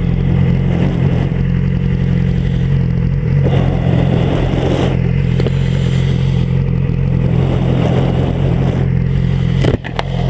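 Yamaha YZF-R6 sportbike's 600 cc inline-four engine running steadily at low revs, its pitch holding even throughout, with a brief drop in level near the end.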